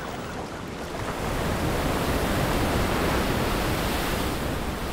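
Ocean surf breaking over coastal rocks: a steady rush of waves that swells about a second in, holds loud through the middle and eases off near the end.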